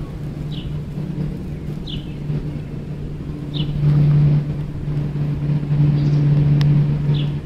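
A steady low motor hum that grows louder about four seconds in. A short high bird chirp comes four times over it.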